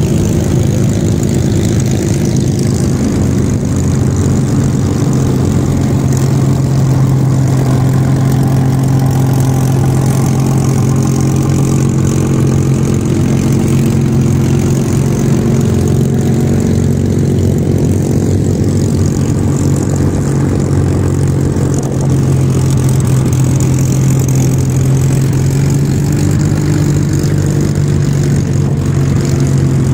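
Spitfires' V12 piston engines running at low taxiing power as the fighters pass close by, a steady, loud, low-pitched propeller-engine hum whose pitch shifts slightly as different aircraft go past.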